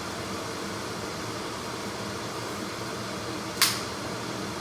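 Steady, even noise from a wok of snow pea leaves stir-frying on the stove, with a single sharp click about three and a half seconds in.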